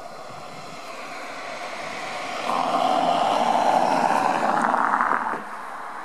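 A motorboat engine running, growing louder, then loudest for about three seconds before it drops off sharply a little after five seconds in.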